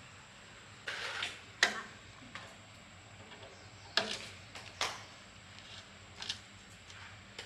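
Scattered sharp clicks and knocks, about five in all, the loudest a little under two seconds in, from hand-tool work on a generator engine.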